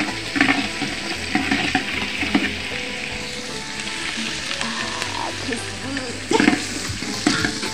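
Food sizzling steadily in a large aluminium cooking pot, with a metal ladle scraping and knocking against the pot a few times as it is stirred.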